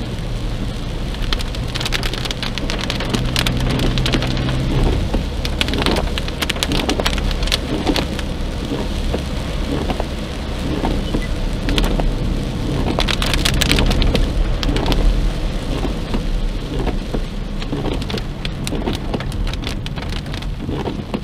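Rain pattering and crackling steadily on the car's windshield and roof, heard from inside the moving car, with the hiss of tyres on the wet road and a low hum underneath.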